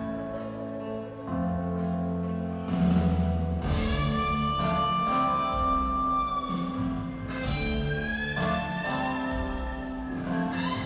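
Live rock band playing: an electric guitar plays a lead of long, held notes that bend slowly in pitch over steady low bass and chords. Heard as a crowd recording in an arena.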